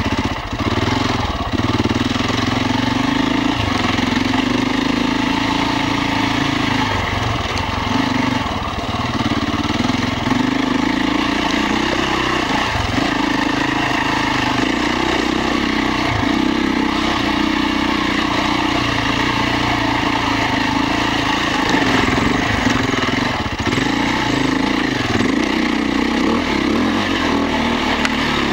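Beta RR 525 enduro motorcycle's single-cylinder four-stroke engine running under way on a trail, revs rising and falling as the throttle is opened and closed, with several brief drops where it is shut off.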